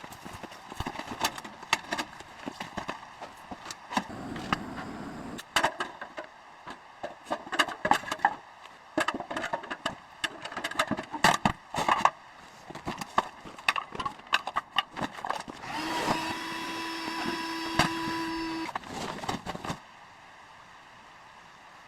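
A long run of sharp wooden knocks and clatter, as of things being handled. Then a steady hiss with a held tone lasts about four seconds and cuts off suddenly.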